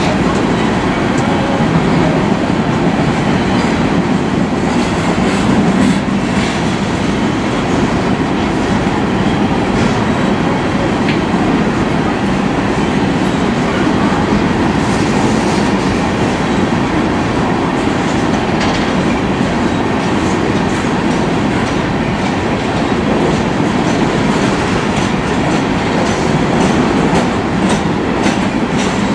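Empty coal hopper cars of a BNSF freight train rolling past, a steady rumble of steel wheels on rail with light clicking from the wheels, more of it near the end.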